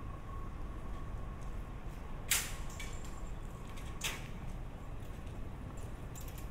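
Quiet city street ambience: a steady low hum, broken by two sharp clacks a little under two seconds apart, with a few fainter ticks.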